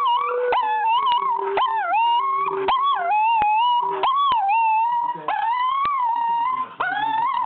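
A small dog howling along in long, wavering high notes while a woman sings a held lower note under it; her note drops in pitch about two seconds in and ends about four seconds in, and the dog howls on. Frequent short clicks run through it.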